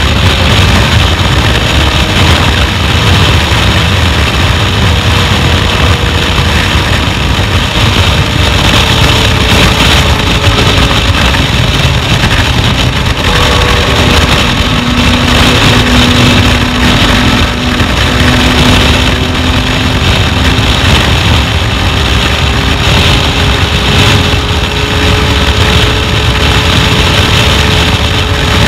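Yamaha MT-09 inline-three motorcycle running at steady road speed, under heavy, steady wind rush on the rider's microphone.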